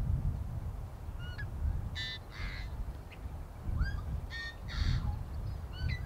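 Wind rumbling on the microphone in gusts, with bird calls over it: a few short rising chirps, and harsher, buzzy calls about two seconds in and again near five seconds.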